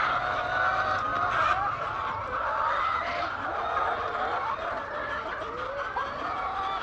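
Many chickens clucking at once, their short calls overlapping into a continuous chatter.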